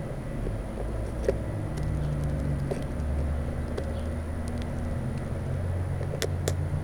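Birds tapping and pecking at seed in the feeder, scattered short clicks with two sharper taps near the end, over a steady low engine-like rumble.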